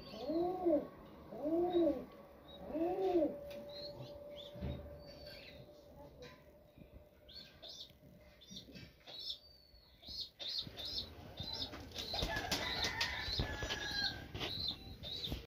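Pigeons in a loft: three rising-and-falling coos at the start, then a run of repeated high-pitched chirps. Near the end comes a burst of wing flapping.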